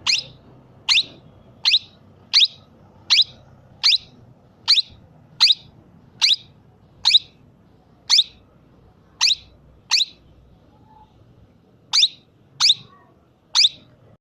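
Plum-headed parakeet giving short, sharp, high-pitched calls over and over, about one every three-quarters of a second, with a pause of about two seconds near the end: hunger calls.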